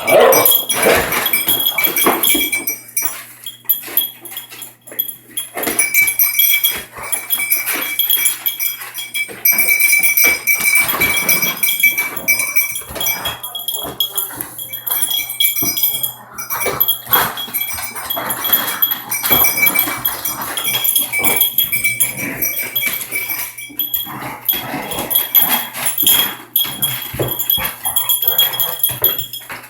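A dog playing with a cat toy: irregular dog noises mixed with many small clicks and knocks, and a thin high tone that comes and goes.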